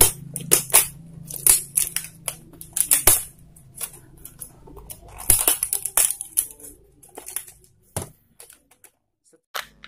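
A knife cutting open the seal of a cardboard smartphone box: a run of short, sharp scraping and tearing strokes with some crinkling of wrapping, dying away about eight seconds in.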